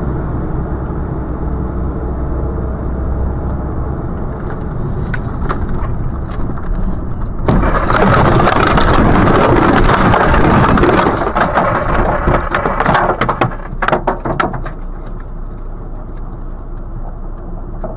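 A vehicle running along the road with steady engine and road noise. About seven seconds in it leaves the road into trees with a sudden loud crash, followed by a few seconds of sharp cracks of breaking branches. A steady, quieter noise follows.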